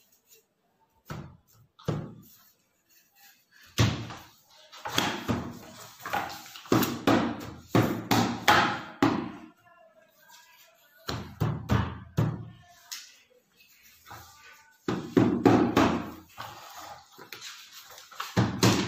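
Repeated thumps on a wooden desk as papers are stamped by hand, coming in irregular runs of quick blows with short pauses between.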